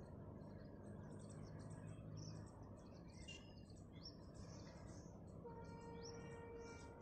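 Faint ambience of small birds chirping repeatedly. A low distant hum fades out after the first two seconds or so, and a distant horn sounds once for about a second near the end.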